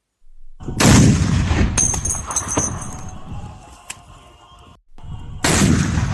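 Two powerful rifle shots, the first about a second in and the second near the end, each with a long echoing tail. Between them the spent brass casing falls and rings with a few light metallic clinks.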